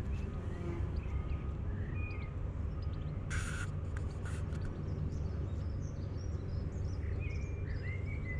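Outdoor ambience: small birds chirping now and then over a steady low rumble, with a brief hiss about three and a half seconds in. The chirps are more frequent near the end.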